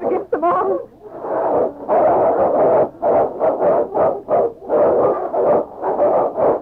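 Radio-drama sound effect of a dog fighting a pack of wolves: a dense, loud run of animal growls and barks in rapid, overlapping bursts.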